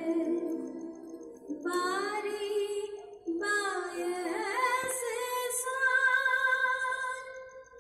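A woman singing a slow, unaccompanied-sounding melody in several phrases, the last a long held note that fades out near the end: a doha (couplet) sung as a song.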